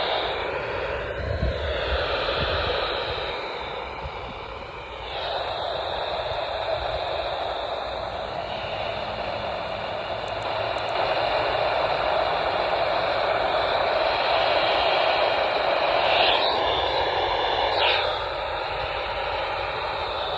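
Radio static: a weak, noisy weather-radio signal hissing steadily, with faint steady tones showing through the noise now and then.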